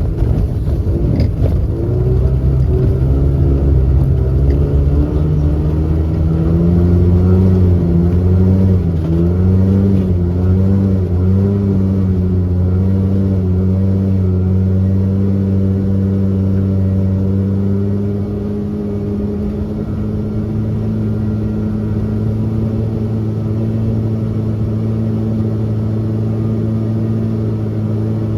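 Subaru R-2's air-cooled 360cc two-cylinder two-stroke engine running, its revs rising and falling unevenly at first. About eighteen seconds in it settles to a steady, slightly quieter run.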